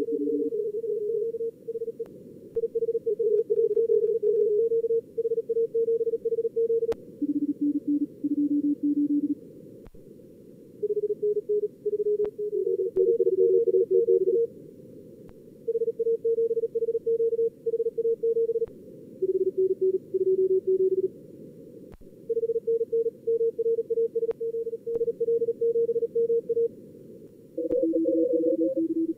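Fast Morse code (CW) from SkookumLogger's contest practice simulator: callsigns and exchanges keyed as on-off tones at a lower and a higher pitch that take turns, over a steady hiss of simulated band noise heard through a narrow receive filter.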